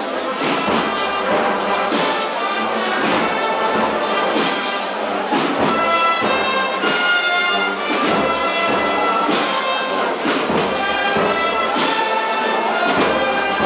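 Wind band with brass and drums playing a slow processional march, with held brass chords over an even drum beat.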